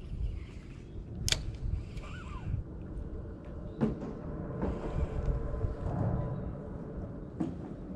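Handling noise from a spinning rod and reel: a few sharp clicks and knocks, about a second in, near the middle and near the end, over a steady low rumble of wind and water.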